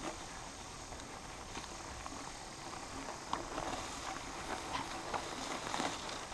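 Mountain bike riding through dense, overgrown brush: a steady rustle of leaves and branches brushing past the bike, with irregular clicks and rattles from the bike over rough ground.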